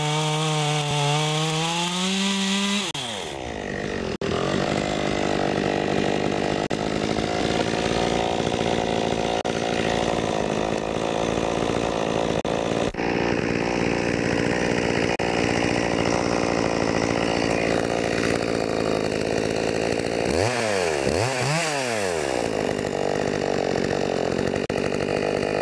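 Small 30 cc two-stroke top-handle chainsaw, a Stihl MS 192T on a new chain, running flat out. About three seconds in it bogs down as it bites into a big oak log and cuts steadily under load. Near the end the revs drop and pick up twice before it carries on cutting.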